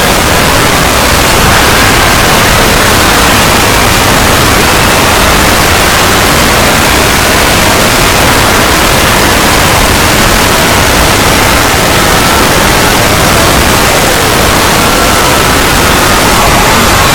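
Loud, steady static-like noise that rushes across the whole range without a break, with faint wavering tones showing through it.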